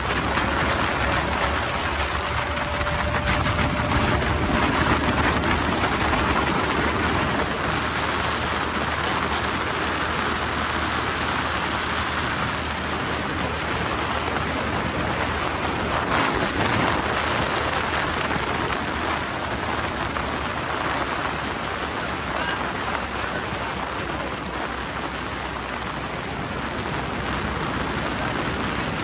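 Donzi 18 speedboat with a NASCAR V8 running at speed on plane: a steady rush of engine, water and wind noise.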